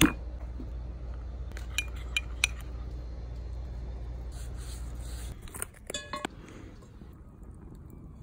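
A metal spoon clinking a few times against a ceramic bowl while spice rub is spooned onto raw steaks, after a slap of meat set down on a wooden cutting board at the very start. About six seconds in comes a quick run of ringing metallic clicks.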